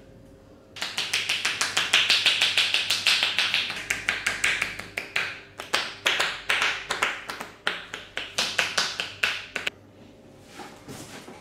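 Percussive tapping massage: hands striking the body in a fast run of sharp slaps, about five a second at first, then more spaced and uneven, stopping near the end.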